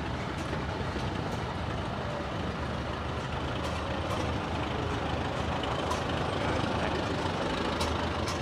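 Oliver 66 row-crop tractor's four-cylinder engine running steadily as the tractor drives slowly past, getting a little louder as it comes close.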